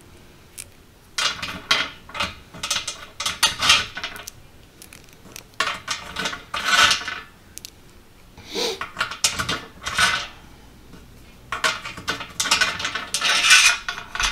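Screws clinking and scraping as they are slid along the slotted metal channels of a truck running board, in several short irregular bursts of metallic rattling with quieter gaps between.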